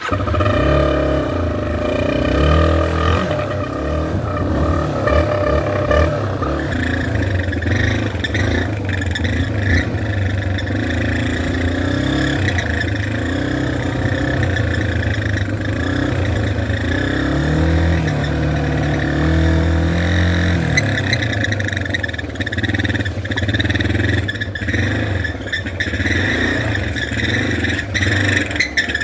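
Yamaha TT-R230 dirt bike engine running and revving, its exhaust blown through an air horn taped into the tailpipe, which gives a horn-like tone over the engine note. The sound starts suddenly, the horn tone is strongest in the first few seconds, and the revs rise and fall about two-thirds of the way through.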